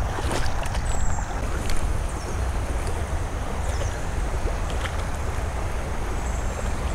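Wind buffeting the microphone as a steady low rumble, over an even hiss of light rain on the creek, with a few faint clicks and high chirps.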